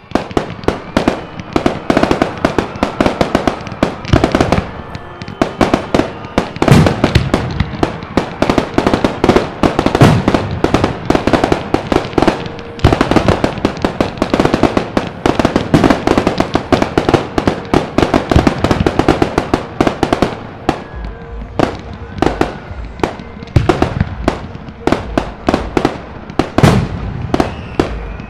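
Fireworks display: a dense, continuous barrage of bangs and crackles from aerial shells going up and bursting, many reports a second, starting suddenly right at the beginning.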